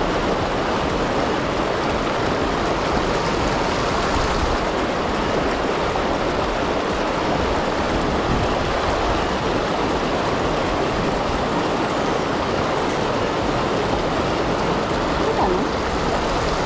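Shallow mountain river rushing steadily over rocks, a continuous even wash of water.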